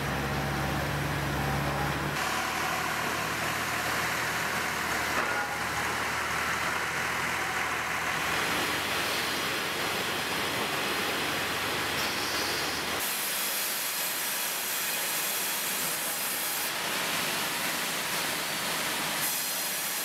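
Steady mechanical noise of sawmill log-handling machinery. A low engine hum in the first two seconds cuts off abruptly, and about thirteen seconds in the low end drops away and a brighter hiss takes over.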